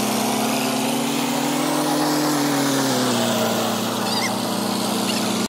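Tractor engine running steadily. Its pitch rises slightly, then eases back about halfway through.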